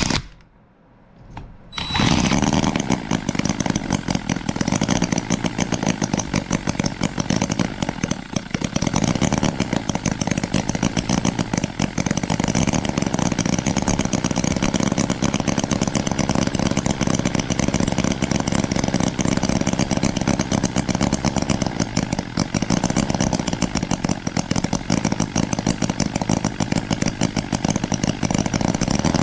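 A 12 cc inline four-cylinder model engine, a copy of the Holt 75, catching on its first start about two seconds in after a brief spin from the starting drill, then running steadily on its own.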